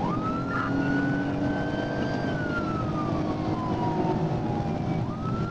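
Police car siren on wail, heard from inside the pursuing cruiser. Its pitch jumps up at the start, climbs slowly for about two seconds, falls slowly for the next three, then starts rising again near the end, over steady road and engine noise.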